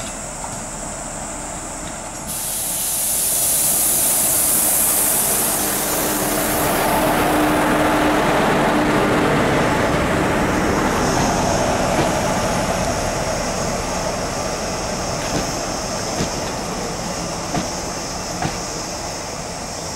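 Indian Railways passenger train hauled by a WAP-4 electric locomotive passing close by at slow speed as it brakes to a halt at a signal. A loud hissing rush starts suddenly about two seconds in, then the coaches roll past with single wheel clicks over rail joints, spaced further apart near the end.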